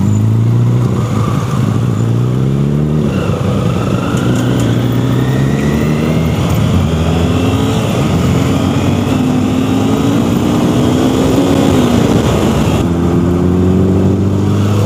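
Motorcycle engine pulling through the gears under wind rush: its pitch climbs, drops at an upshift about three seconds in, climbs slowly again, then holds steady near the end.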